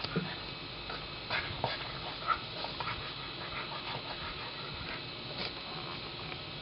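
Dog sounds at close range: breathing with scattered short noises, a few brief sharp ones, over a steady hiss.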